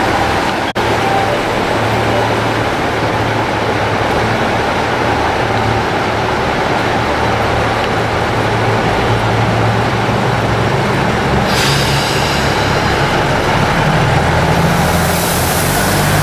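JR Central KiHa 75 diesel railcar idling, a steady low engine hum. About two-thirds of the way through a hiss starts, and near the end a higher hiss joins it.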